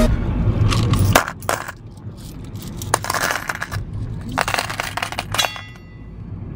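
Coins clinking and rattling in several bursts, with a brief metallic ring near the end.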